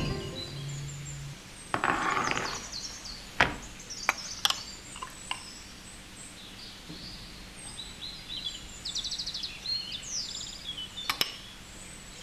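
A few light knocks and a scrape of a spoon against a glass bowl and pan as tomato sauce is spooned onto a pizza base. Small birds chirp and trill in the background through the second half.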